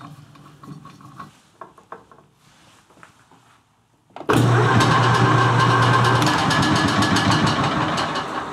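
Light metal clinks as a counterweight is fitted to a lathe faceplate. About four seconds in, the small metal lathe is switched on and runs loud and steady, spinning an offset-mounted Triumph Tiger Cub cylinder head. The rotating setup is still out of balance and shaking.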